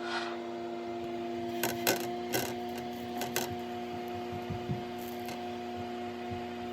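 A steady hum of a few fixed tones, with several sharp clicks and knocks, some in quick pairs, between about one and a half and five seconds in.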